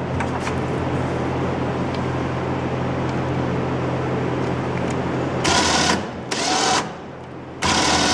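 A steady mechanical hum, then from about five and a half seconds in an electric motor with a gear whine starts and stops in three short bursts.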